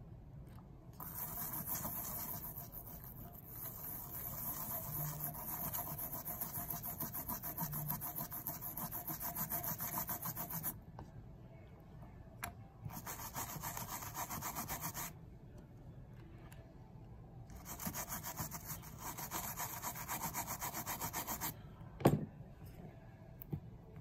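Toothbrush bristles scrubbing a small charging-port circuit board clean, in three spells of quick back-and-forth strokes. A single sharp click comes near the end.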